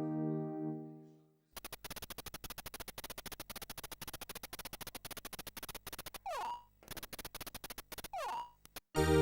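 FM synthesizer (miniDexed, emulating the Yamaha DX7) playing a sound-effect patch: a held tone dies away, then a rapid train of clicks broken twice by a quick falling zip. A new held synth chord comes in at the very end.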